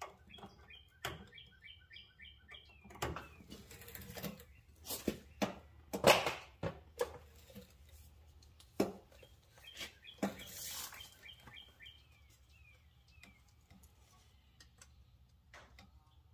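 A small bird chirping in quick repeated notes, twice in runs of a few seconds. Between the runs come scattered clicks, knocks and scrapes of hands and a tape measure working on the tie rod under the truck, the loudest knock about six seconds in.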